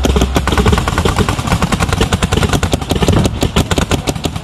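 Paintball markers firing rapidly, many shots a second, the pops overlapping; toward the end they fall into a fast, even string of shots.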